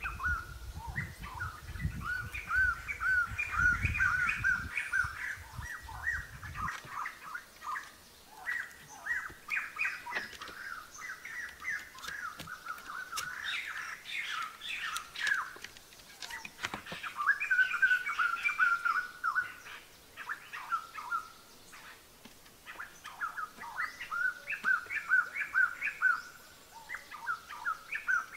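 Birds chirping in quick repeated phrases of short notes, going on and off throughout. A low rumble underneath stops abruptly about seven seconds in, and there are a few faint knocks.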